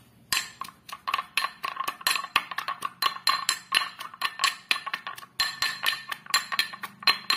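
Steel pestle striking and grinding inside a small stainless-steel mortar, quick irregular clinks about four a second, each with a short metallic ring, as a crumbly mix of fried badi is crushed and mixed.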